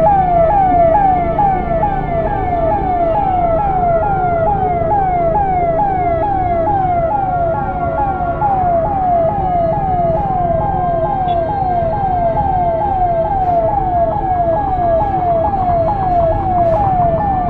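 Ambulance siren wailing in a fast repeating yelp, each sweep dropping in pitch and jumping back up about two and a half times a second, with the low rumble of traffic underneath.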